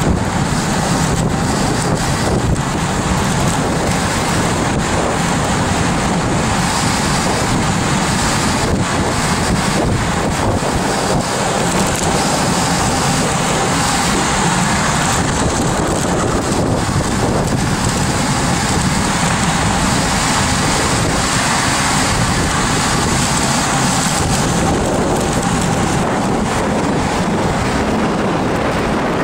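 Steady, loud wind noise buffeting the microphone of a camera on a bicycle descending a mountain road at speed.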